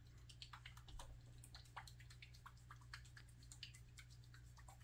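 Near silence: a low steady hum with faint, scattered small ticks, light handling of small parts by hand.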